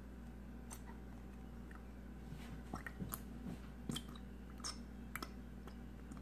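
Plastic bottle of white glue squeezed hard upside down to empty it into a cup: scattered wet squelches and clicks as glue and air sputter from the nozzle, most of them in the middle of the stretch.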